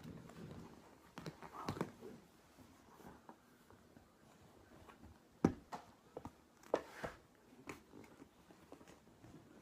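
Scattered light clicks and knocks, with a soft rustle at the start, the loudest knock about halfway through.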